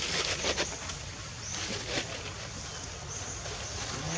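Outdoor ambience: a few short rustling clicks near the start and again about two seconds in, over a steady background with faint high chirps recurring every second or so.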